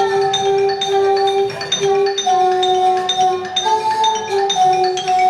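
Glass bottles played as instruments: a melody of held notes in two voices, stepping from pitch to pitch, over a steady rhythm of struck bottles clinking and ringing.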